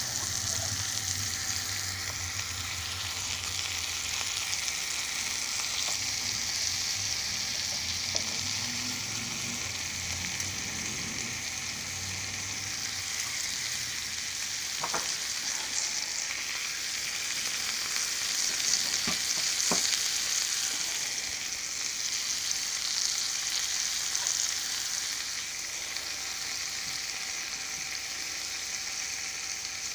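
Chicken breasts frying in melted butter in a skillet, browning: a steady sizzle, with two faint clicks a little past halfway.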